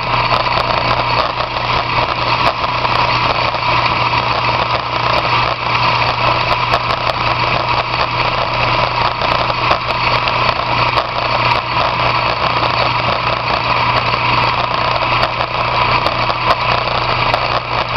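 Monarch 16CW engine lathe running steadily, its motor and gearing making a constant mechanical drone with a hiss of machining over it.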